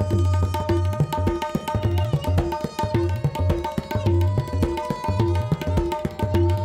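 Solo tabla playing: a fast, dense run of strokes on the right-hand dayan over deep, ringing bass strokes on the left-hand bayan, some of them bent in pitch.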